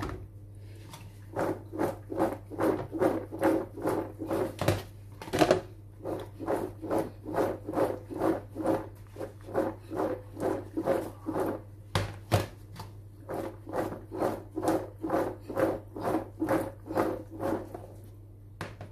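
Cooked penne with peas and corn tossed in a large bowl, the pasta sliding and swishing against the bowl's sides in regular strokes about twice a second, with a few sharper knocks of the bowl along the way.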